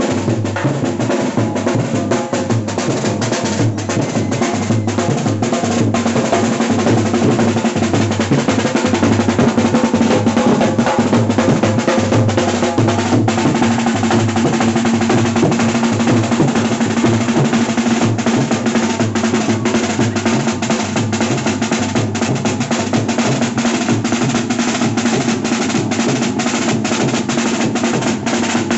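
A bass drum and a snare drum beaten with sticks, playing a fast, steady dance rhythm with snare rolls.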